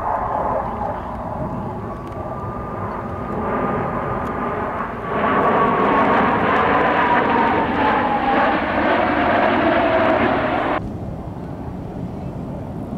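A formation of F/A-18 Hornet jets passing overhead. A loud jet roar swells about five seconds in, with a whine that slides steadily down in pitch as they go by. It cuts off abruptly about two seconds before the end.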